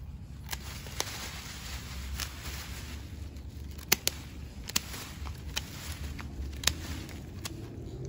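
Gloved hands digging and rummaging through loose potting soil and dry sweet potato vines in a large plastic pot, with scattered sharp clicks and crackles.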